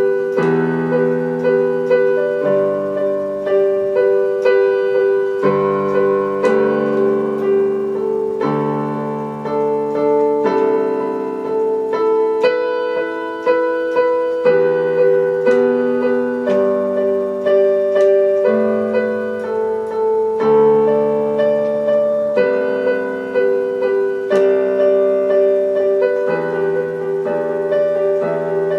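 Background piano music: a steady repeated note held over changing chords in a gentle, even rhythm.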